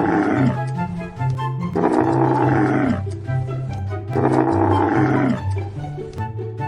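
A camel bellowing in three rough, drawn-out calls, each about a second long with the pitch falling away at the end, over background music with a steady bass line.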